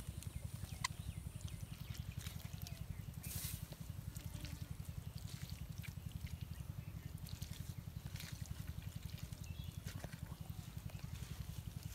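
Wet rustling and crackling of hands picking fish and weeds out of a muddy nylon cast net, with soft scattered clicks and squelches, over a steady low pulsing hum.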